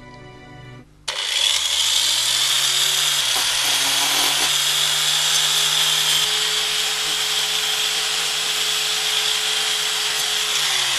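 Handheld electric saw with a cutting disc, like an angle grinder, starting about a second in. Its motor spins up with a rising whine, then runs steadily with a loud hissing grind as it cuts a metal rod, and winds down at the very end.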